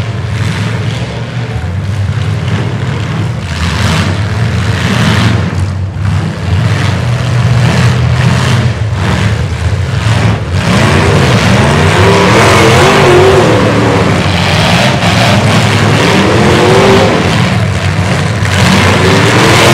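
Several demolition derby trucks' engines running and revving hard, with sharp bangs from trucks ramming each other in the first half. From about ten seconds in, the revving grows louder and rises and falls repeatedly.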